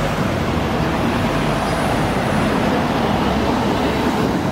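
Busy city road traffic passing close by: a steady, continuous mix of engine and road noise.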